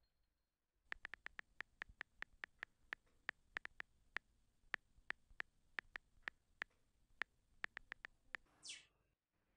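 Smartphone on-screen keyboard clicking as a message is typed: about thirty quick, irregular taps over some seven seconds, then a short swoosh near the end.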